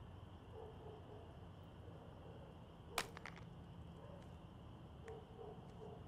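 Faint night ambience with a steady chirring of insects, like crickets. About halfway through comes one sharp click, followed at once by a few lighter clicks.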